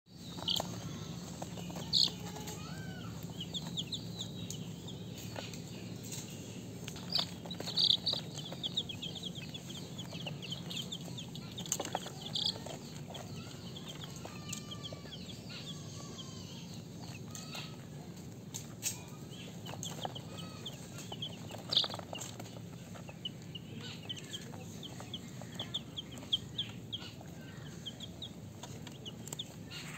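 Baby chicks peeping: a continual stream of short, high cheeps, a few of them louder, over a steady low hum.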